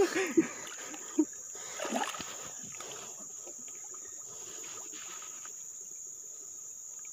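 Insects shrilling in one steady, high-pitched drone, with a few faint knocks and murmurs in the first two seconds.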